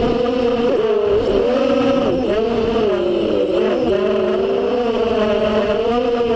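FPV quadcopter's brushless motors and propellers whining, the pitch rising and falling continually with throttle as it flies low and fast.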